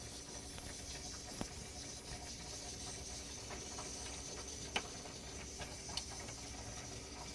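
De'Longhi pump espresso machine heating up for steam: a faint steady hiss with a few light ticks, the steam not yet flowing.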